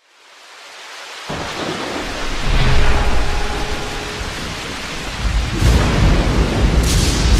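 Sound-effect rain and thunder fading in from silence: a rain hiss builds, and deep rolling thunder comes in about a second in, swelling loudest around three seconds and again near the end, with a brief swish near the end.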